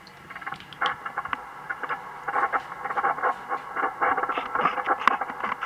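A spatula stirring mayonnaise and mustard in a glass bowl, making a quick, irregular run of clicks and scrapes that gets busier about a second in.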